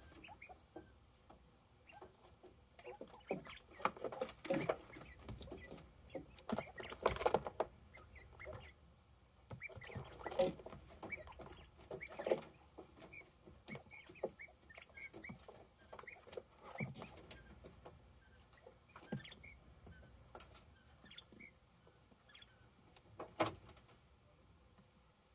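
Quail moving about: irregular rustling, scratching and light knocks, with scattered short, high calls.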